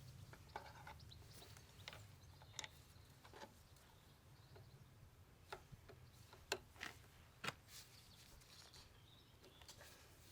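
Faint, scattered sharp clicks and taps of hand tools and metal parts being handled while the engine is dismantled, over a low steady hum. The clicks come irregularly, about eight in ten seconds, and the loudest cluster falls around the middle.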